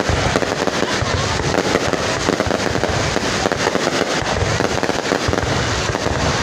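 Aerial fireworks shells launching and bursting in quick succession: a dense, continuous run of overlapping bangs and crackles.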